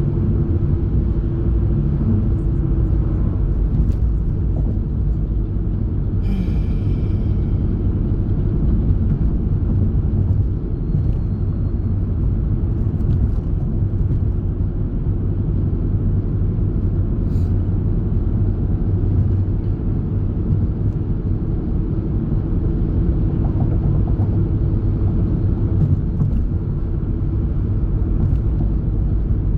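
Steady low rumble of a moving vehicle heard from inside the cabin, with a constant hum. There is a brief high-pitched squeak about six seconds in.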